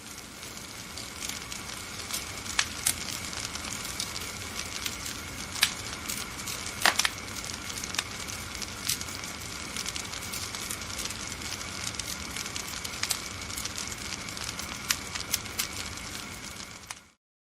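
Fire burning: a steady hiss with irregular sharp crackles and pops, a few louder snaps, fading out near the end.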